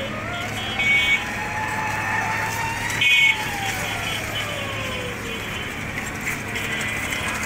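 A siren slowly rising and then falling in pitch once, with two short horn toots, about a second in and about three seconds in, over a steady low engine hum.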